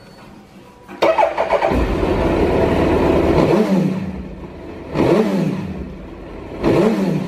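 Suzuki GSX1300BK B-King's inline-four engine starting through a Yoshimura dual exhaust about a second in, catching and running fast. It is then blipped twice, about five and seven seconds in, each time the revs dropping back.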